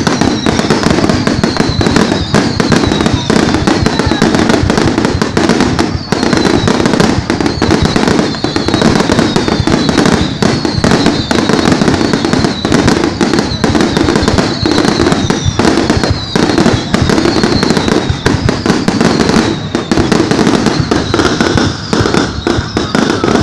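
A dense, continuous barrage of fireworks bangs and crackles from a New Year's Eve display. High whistles repeat every second or two, each falling in pitch.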